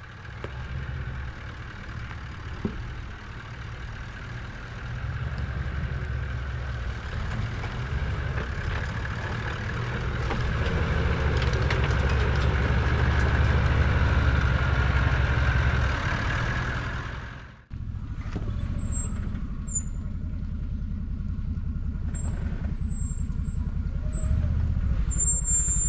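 Off-road vehicle engine running as it drives along a bush track. It builds steadily for most of the stretch, cuts off suddenly about two-thirds of the way through, then runs on more evenly.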